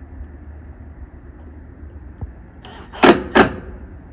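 Cordless driver sinking a screw into a soft-close cabinet hinge on a soft alder door: two short, loud bursts of the driver about a third of a second apart near the end, just after a fainter one.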